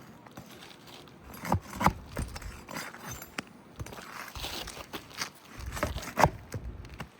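Sharp knocks and scraping as a wind-damaged roof shingle is worked loose and its nails unfastened by hand. There are a pair of knocks at about one and a half to two seconds in, and another pair near the end.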